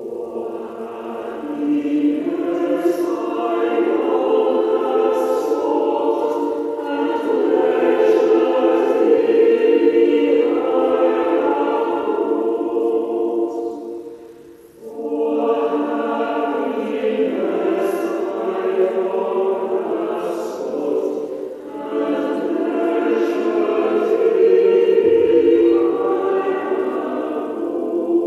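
Choir singing a slow sacred piece in long held phrases, with a short break about halfway through.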